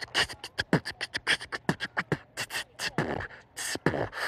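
A person beatboxing: a fast run of mouth-made low kick thumps, sharp snare clicks and hissing hi-hat strokes, several a second.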